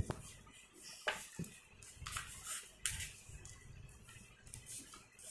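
Sheets of A4 paper rustling and swishing as hands slide and crease a coloured sheet folded around white pages, with a sharp tap at the very start.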